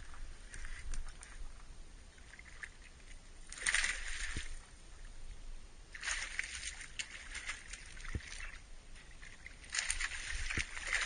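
Water sloshing in three bursts of a second or two each, over a steady low rumble, with a few light clicks.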